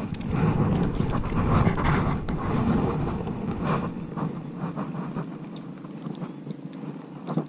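Rustling and handling noise of gloved hands gripping a small fish and working the hook out, with small clicks and crackles, busier at first and quieter after about five seconds. Wind buffets the microphone.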